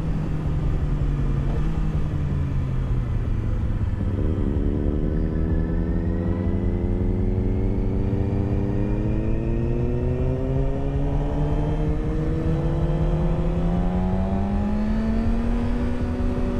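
Motorcycle engine under way, with a steady low rumble underneath. The engine note sags slightly for the first few seconds, then climbs steadily for about ten seconds as the bike accelerates, and levels off near the end.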